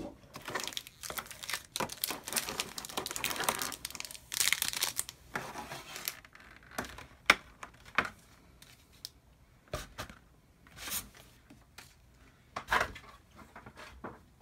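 Plastic packaging being crinkled and torn by hand: dense, continuous crackling for the first five or six seconds, then scattered short crinkles and one sharp click.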